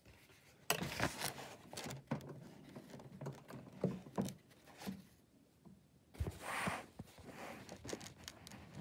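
Paper and book handling: pages and a loose sheet rustling and scraping, with a run of sharp clicks and knocks through the first few seconds and a longer swish a little past the middle.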